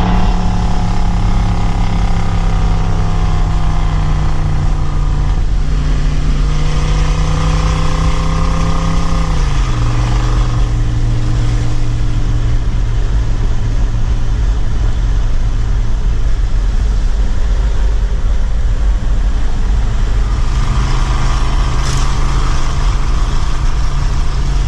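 Chevrolet 350 small-block V8 with open straight-pipe cutouts, pulling a 1947 Willys truck down the road. The exhaust note eases down at first, drops sharply about nine and a half seconds in, holds steady, then climbs again near the end.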